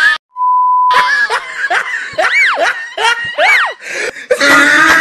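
Comedy sound effects: a steady one-tone beep lasting about a second, then a string of sweeping, laugh-like squeals with two long rising-and-falling glides. Busier, louder mixed sound comes in near the end.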